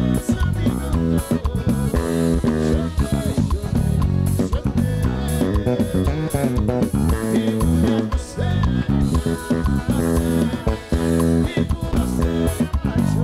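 Live band music with an electric bass guitar prominent in the low end, playing a steady line over drums and other instruments.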